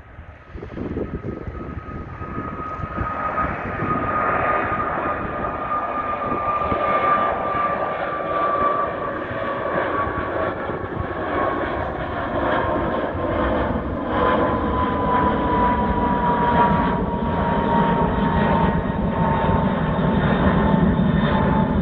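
Boeing 767-300ER freighter's jet engines at takeoff power. The sound swells over the first few seconds into a loud, steady rumble, with a high whine sliding slowly down in pitch throughout.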